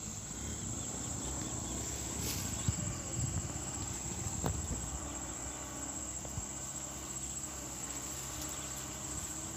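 Steady high-pitched insect chirring from the surrounding fields, with a low engine rumble underneath from a loaded sugarcane truck moving away down a muddy track.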